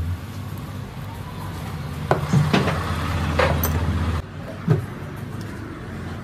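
Small metal valve parts clinking and knocking as they are handled and set down on a workbench: a few sharp knocks a little past the middle and one more near the end. Under them runs a steady low machine hum that cuts off abruptly about four seconds in.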